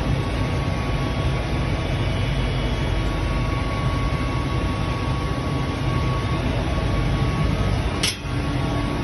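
Comexi FI 3010 CNC ten-colour central-impression flexo printing press running in production: a steady, loud mechanical rumble and hum of rollers and drives, with a thin constant whine over it. A brief sharp click near the end.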